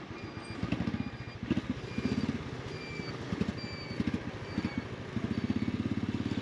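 Motorcycle engine running on the move, its low rapid beat coming in short surges and holding steadier near the end.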